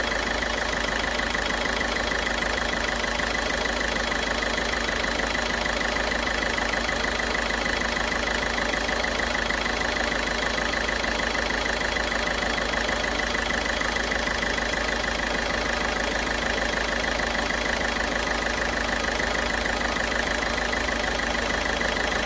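Ford Figo's turbo-diesel engine idling steadily while a decarbonising cleaner is fed into its intake. The earlier misfire (missing) has largely eased, though a light vibration remains.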